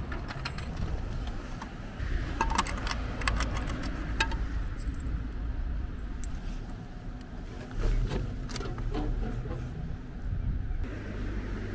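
Coins clinking and clicking against metal at a drink vending machine, a quick run of sharp metallic clicks, followed by a dull thump a few seconds later, over a steady low hum.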